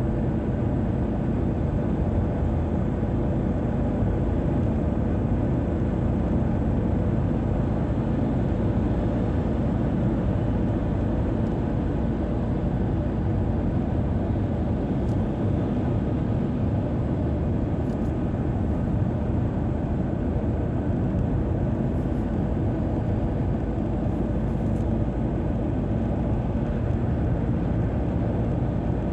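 Car driving at motorway speed: a steady rumble of tyres and engine.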